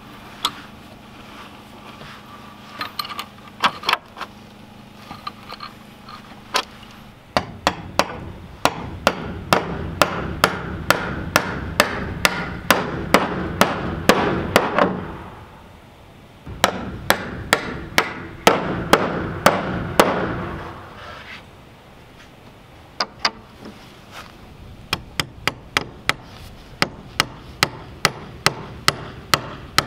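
Steel hammer striking bolts through a black steel strap hinge into a wooden plank barn door, in runs of blows about two a second with pauses between them.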